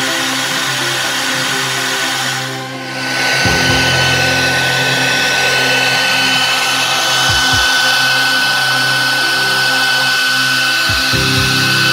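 CNC router spindle milling an aluminium plate with a small end mill: a steady whine over continuous cutting noise. It dips briefly about two and a half seconds in, then a steady high tone holds for the rest.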